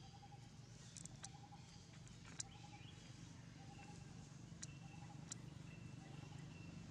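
Very quiet forest ambience: a faint call repeating one short note steadily, less than a second apart, over a low steady hum, with a few sharp clicks scattered through it.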